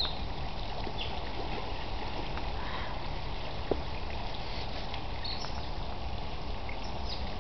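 Steady rush of water running through the rocky stream of an otter enclosure, with a few faint, short high chirps.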